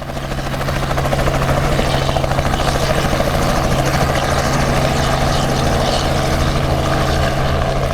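A loud, steady engine drone with a constant low hum and a fast flutter over it, swelling in over the first second and then holding.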